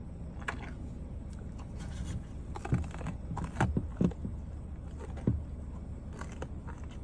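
A deer biting into a carrot and crunching it, a run of sharp crunches in the middle, over a steady low hum.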